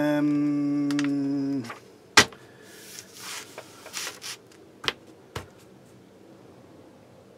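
A steady pitched hum with a rich, buzzy tone runs for about a second and a half and then stops. It is followed by a few sharp clicks and soft paper rustling as a paper instruction sheet is moved on a cutting mat.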